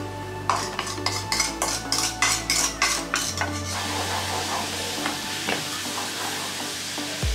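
A wooden spoon stirring sauce in a saucepan on a gas burner, scraping against the pan in quick strokes about four a second for the first three seconds. Then the hot sauce sizzles steadily.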